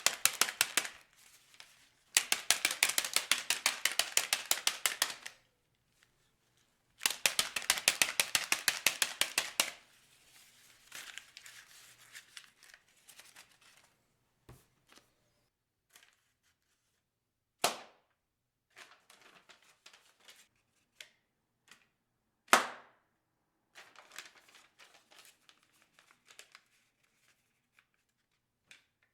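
Sheets of white printer paper being handled. There are three runs of rapid, evenly spaced ticking, several a second and each about three seconds long. After them come quiet crinkles and a few sharp swishing snaps of the paper.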